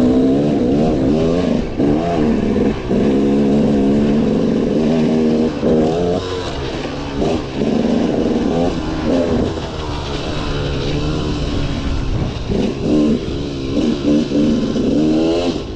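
KTM 300 two-stroke dirt bike engine, ridden hard under throttle. Its pitch climbs and falls again and again, with brief drops where the throttle is cut between pulls.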